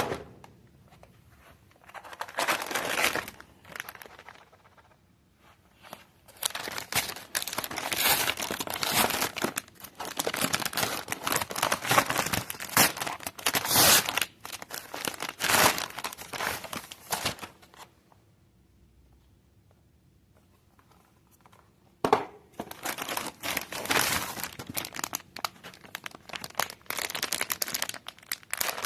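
Packaging crinkling and tearing as a delivered parcel is unwrapped by hand, in irregular spells with a pause of a few seconds about two-thirds of the way through.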